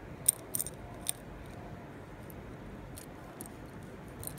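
Metal links and pearl drops of an imitation-jewellery necklace clicking lightly against each other as it is handled: a few sharp clicks in the first second, then a couple more near the end.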